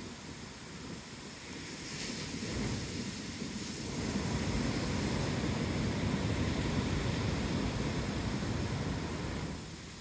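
Ocean surf breaking on a sandy beach: a hiss of wash about two seconds in, then a louder low rumble of breaking waves from about four seconds in that eases off near the end, with wind rumbling on the microphone.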